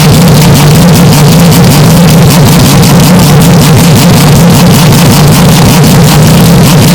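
Porsche 911 RSR race car's flat-six engine sound, bass-boosted and clipped into heavy distortion, running at a steady pitch with no revving or gear changes.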